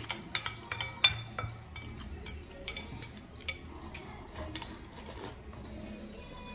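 Wooden chopsticks clicking and scraping against a white bowl of noodle soup in a quick series of sharp clinks over the first few seconds, then softer eating sounds as the bowl is tipped up and the noodles are slurped.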